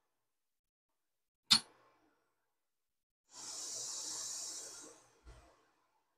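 A sharp click about one and a half seconds in, then under two seconds of steady hiss from a hot-air rework nozzle blowing on the board while a replacement surface-mount resistor is set on its pads, followed by a soft low thump.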